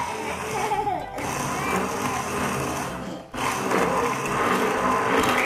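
Handheld immersion blender motor running steadily, blending a milkshake in a plastic jug, with a brief break about three seconds in before it runs again.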